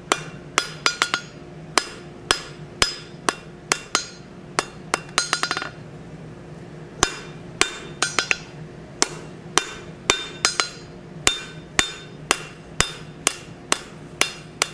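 Hand hammer striking a hot steel bar on an anvil to draw it out between shoulders: ringing blows about two a second, with a quick run of light taps about five seconds in and a pause of about a second after. A steady low hum runs underneath.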